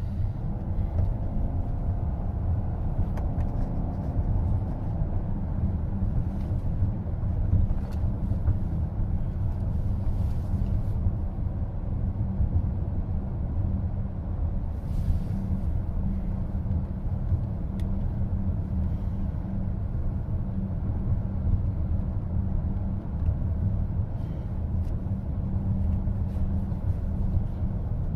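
Steady road and tyre rumble heard from inside the cabin of a moving car.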